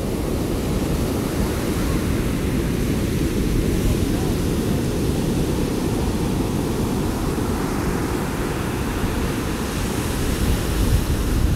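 Heavy storm surf breaking and washing up the beach, with strong wind buffeting the microphone: a loud, steady rumble of noise.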